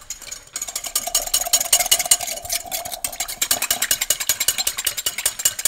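Wire whisk beating a thin liquid dressing in a glass Pyrex measuring jug, the wires clinking rapidly and evenly against the glass. It starts about half a second in and keeps an even, fast pace throughout.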